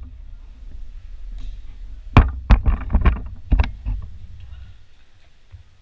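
Armored sparring: weapons striking round shields and armor, about five sharp blows in a second and a half, over a low rumble.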